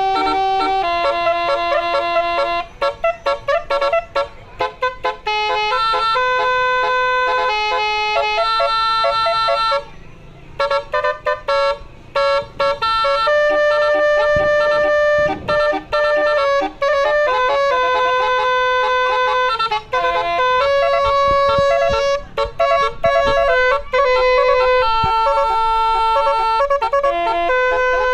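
Basuri 'telolet' multi-trumpet musical air horn playing a melody: a string of loud held horn notes stepping up and down in pitch, with a short break about ten seconds in.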